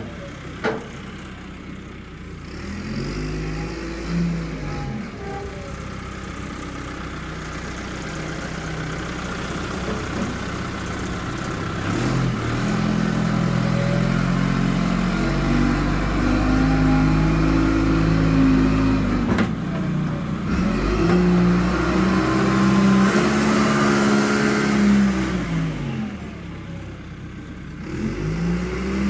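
John Deere 310 backhoe loader's engine running under work, revving up and falling back again and again. A sharp clank comes just after the start and another about two-thirds of the way through.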